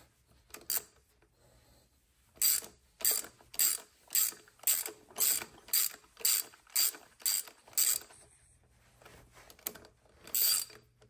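Hand ratchet with a 3/16 hex bit on an extension clicking in quick back-and-forth strokes, about two a second, as it backs out a primary cover bolt on a Harley-Davidson; a pause, then one last stroke near the end.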